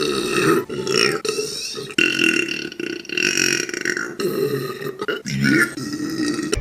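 Several long, drawn-out human burps one after another, each running for a second or more.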